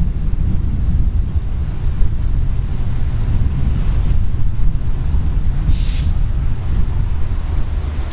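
Hitachi diesel-electric locomotive idling at a standstill, a steady low rumble, with one short high hiss about six seconds in.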